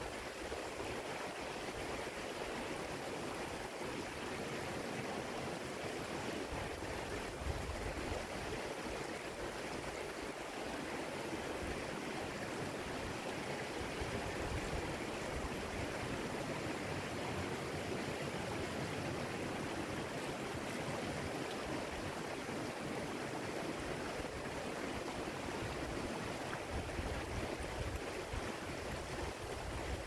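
Rocky mountain stream flowing, a steady, even rush of water.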